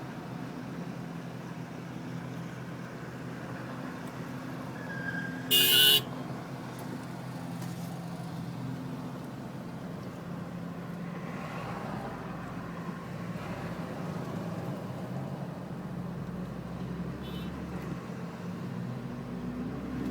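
A vehicle's engine hums steadily, and one short, loud horn honk sounds about five and a half seconds in.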